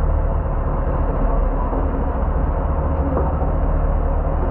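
Fishing boat's engine running steadily, an even low rumble with no change.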